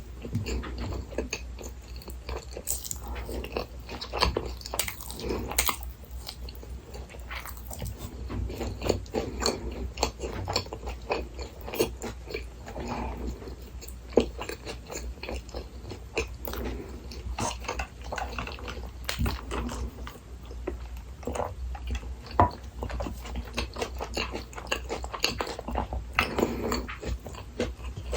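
A person chewing and biting into a Burger King Texas Chili Whopper meal close to the microphone: continuous wet, irregular mouth sounds with a few sharper crunchy bites.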